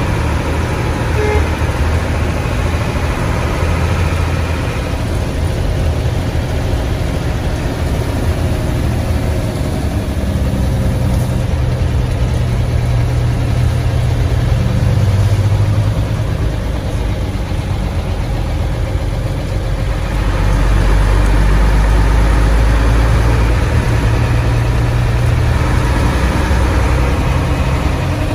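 Old Hino bus engine running on the road, heard from inside the bus, with its raspy 'ngorok' exhaust. The engine note shifts up and down several times and is loudest about two-thirds of the way through.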